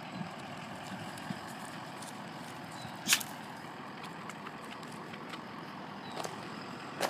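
Steady background noise outdoors, with one loud sharp click about three seconds in and a few faint ticks near the end.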